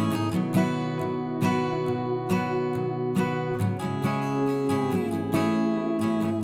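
Background music: acoustic guitar picking and strumming, with a note that slides down in pitch about four to five seconds in.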